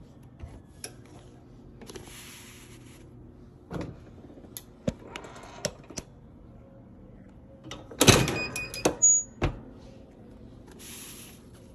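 Heat press being worked: scattered clicks and short rustles, then a loud cluster of metal clanks and clicks with a brief metallic ring about eight seconds in as the press's handle and platen are moved.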